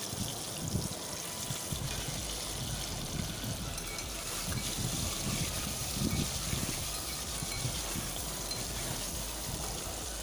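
Boiled eggs shallow-frying in hot oil in a pan, the oil sizzling steadily.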